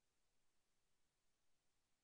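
Near silence: faint steady hiss of the recording's noise floor.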